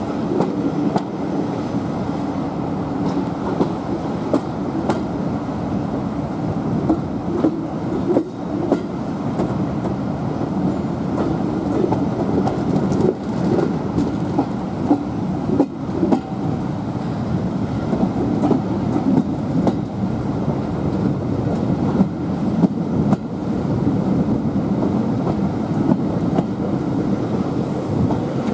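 Passenger carriage of a heritage train rolling along at speed: a steady rumble of wheels on rails, with scattered short clicks and knocks.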